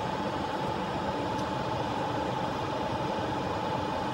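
Solder fume extractor fan running steadily: an even rush of air with a constant mid-pitched whine.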